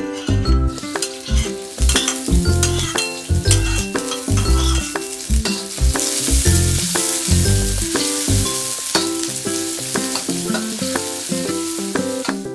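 Food sizzling as it fries in hot oil in a pan and is stirred. The sizzle builds about a second in and is loudest around the middle.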